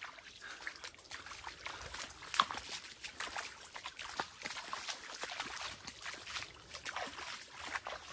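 River water trickling and bubbling: an irregular, continuous run of small gurgles and plops.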